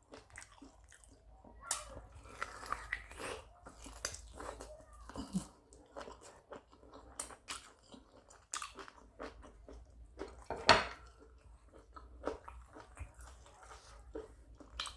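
A person chewing and biting food close to the microphone, with irregular wet smacks and crunchy clicks, one louder crunch about eleven seconds in. Mukbang-style eating of yam with fried spinach.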